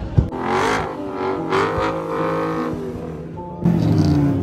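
Car engine revving up and down through a tyre-smoking burnout, with the rear tyres screeching against the pavement. A sharp knock comes just after the start, and near the end the sound cuts abruptly to a steadier, louder engine.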